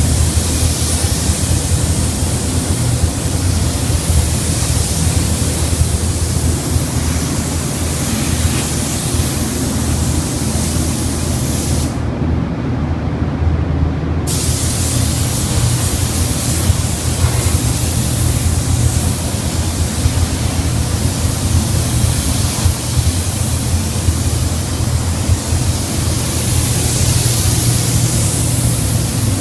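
Gravity-feed paint spray gun hissing steadily as it sprays gray paint onto a car's body panels, over a steady low hum. The hiss cuts out for about two seconds near the middle while the hum goes on.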